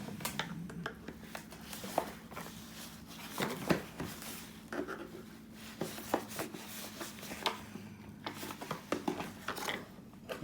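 Irregular small clicks, taps and scrapes of hard plastic vacuum-cleaner parts being handled and worked on by hand during disassembly, over a faint steady low hum.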